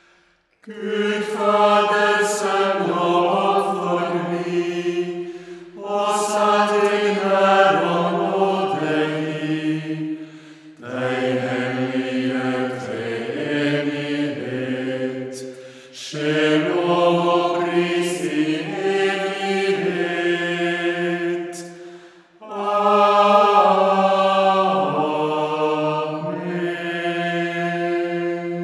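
Unaccompanied singing of a slow, chant-like hymn, in five phrases of about five seconds each with a short breath between them.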